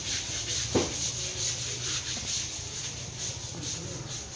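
Hand-scrubbing strokes as an elephant's leg is rubbed down during its bath, over a steady low hum and high hiss. A single brief thump with a falling pitch comes about three-quarters of a second in.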